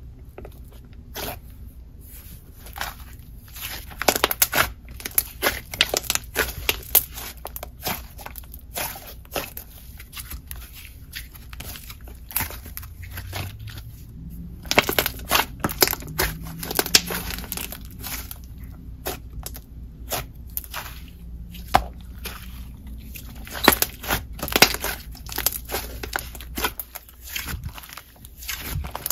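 Hands squishing, folding and stretching a jelly slime as clay is mixed into it. The slime gives off many irregular crackly clicks and pops.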